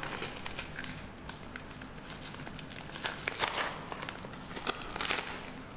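Small plastic packaging bag crinkling and rustling in the hands as it is pulled open, with scattered light clicks and a few louder crinkles about three and five seconds in.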